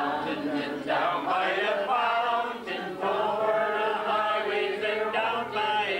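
Pub crowd singing together in the chorus of an Irish ballad, many voices holding long sung lines.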